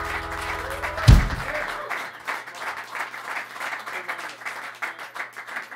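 A rock band's final held chord ends about a second in with one loud closing hit on the drums and cymbals. Applause from a small audience follows and slowly fades.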